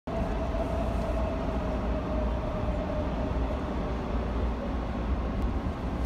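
Steady low rumble with hiss, strongest in the bass. A faint tone drifts slowly down in pitch during the first half.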